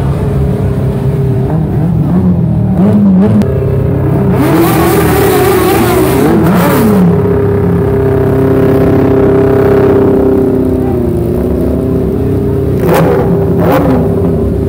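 Motorcycle engines running and being revved. Revs climb and fall a few seconds in, then are held high for about three seconds before dropping back, with two short blips near the end.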